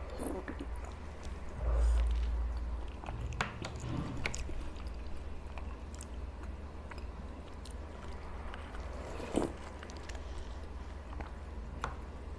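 Close-miked chewing and eating of soft, milk-soaked rasabali, with a few sharp clicks of a metal spoon against the serving tray, over a steady low hum.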